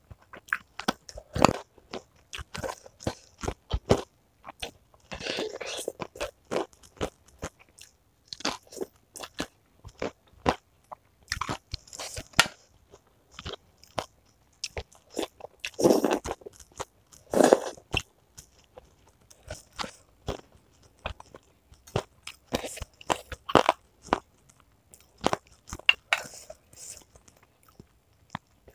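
Close-miked eating: a person biting and chewing crunchy chicken cartilage (tulang rangu) with bakso, in a steady run of irregular crunches and wet chewing. A few louder bites come about a second and a half in and twice around the middle.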